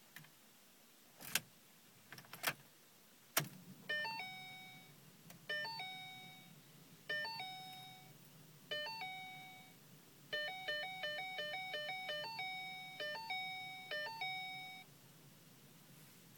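A few sharp clicks, then the 2011 Ford Mustang's dashboard warning chime sounding over and over: a falling two-note chime about every second and a half, a quicker run of chimes around the middle, then slower again before it stops. No engine cranking or running is heard.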